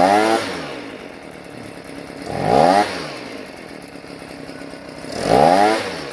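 Tanaka two-stroke leaf blower engine blipped three times, each rev rising and falling in pitch and dropping back to idle in between, blowing a strong blast of air.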